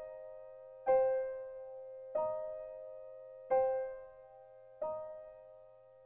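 Background music: slow, soft solo piano, a note or chord struck about every 1.3 seconds and left to ring out.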